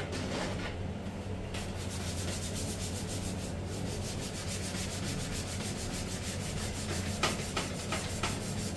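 Rapid back-and-forth scrubbing, a brush or pad rubbing at stains on a window air conditioner's parts, with a few harder strokes near the end. A steady low hum runs underneath.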